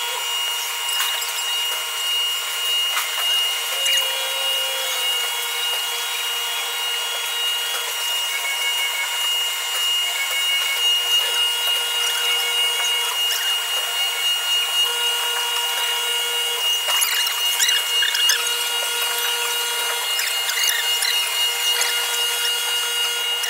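CNC milling machine in four-axis milling, its spindle running with a steady high whine while the end mill cuts a workpiece turned in a rotary-axis chuck. Irregular crackling and ticking of the cut grows busier in the second half.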